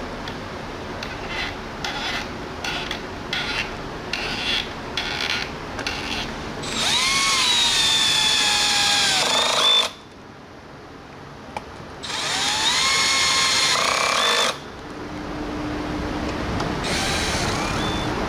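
Handheld electric drill: a series of short trigger blips, then two runs of about three seconds each in which the motor whines up to speed, holds, and winds down.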